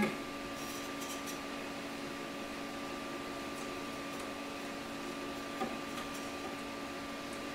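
MakerBot Replicator 2 3D printer idling while held at a build-plate leveling point: a steady hum. There are a few faint ticks early on and one small knock about five and a half seconds in.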